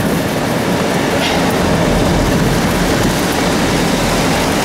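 Loud, steady rumble of a storm-chase vehicle driving: road and running noise with no clear engine note.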